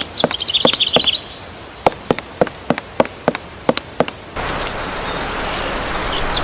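Sound-effect track: steady sharp ticking, about three and a half ticks a second. A fast high chirping trill falls in pitch over the first second, and a steady hiss takes over about four and a half seconds in.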